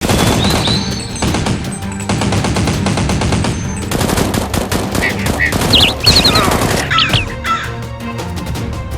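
Rapid automatic gunfire sound effects, with background music underneath.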